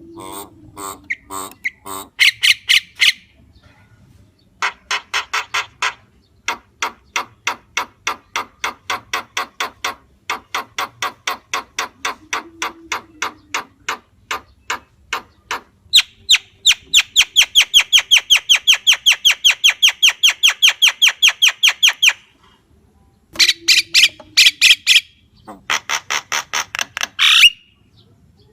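Javan myna (jalak kebo) calling: runs of rapid, evenly repeated harsh notes, about seven a second, in several bursts of a few seconds each. The longest and loudest run comes after the middle.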